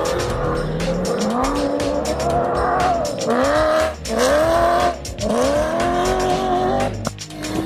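Rally vehicle engine accelerating hard, its pitch climbing and then dropping sharply with each gear change, several upshifts in a row.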